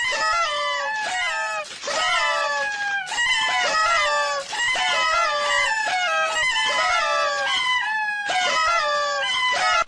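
Chickens squawking: a fast, continuous run of loud calls, each falling in pitch, several overlapping.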